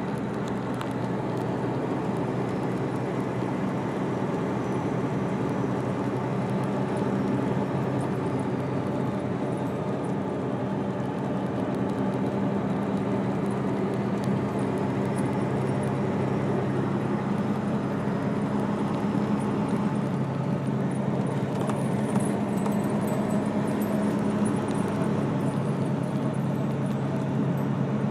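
A motor engine running steadily, a constant droning hum over an even rushing noise.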